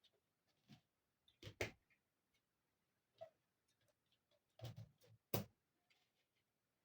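Small plastic miniature furniture pieces being handled and set down, giving a handful of soft clicks and taps, the two sharpest about a second and a half in and about five seconds in.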